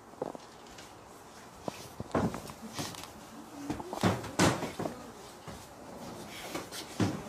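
Scattered soft thumps and knocks with rustling as two people scuffle and grapple on hotel beds, the firmest knocks near the middle and near the end.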